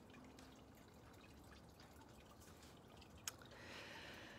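Near silence with faint room tone, broken by a single short click about three seconds in and a soft breathy inhale near the end, as a crying woman draws breath.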